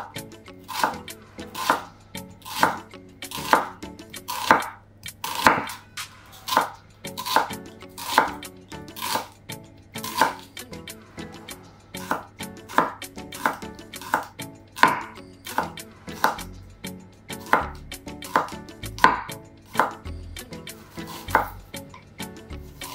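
Kitchen knife slicing onion, garlic cloves and ginger on a wooden cutting board, the blade striking the board in steady strokes about once a second.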